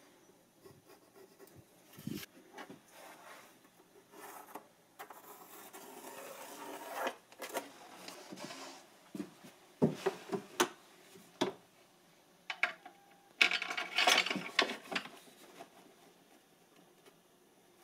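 A metal square and an aluminium guide rail being handled on a plywood worktop: irregular rubbing and scraping on the wood with scattered sharp knocks. The sharpest knocks come about ten seconds in, and a longer scrape follows about fourteen seconds in.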